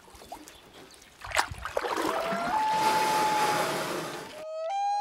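Faint water lapping and a single knock, then a long wailing call that jumps up to a higher note and holds. After a sudden cut comes a second clean wail that steps up once and is held: the wail call of a common loon.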